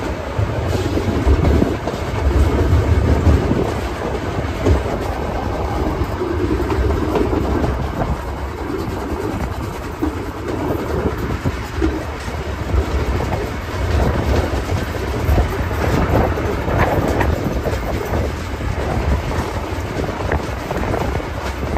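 Heritage train's passenger coach running along the track, heard from its open veranda: a steady rumble of wheels and bogies on the rails.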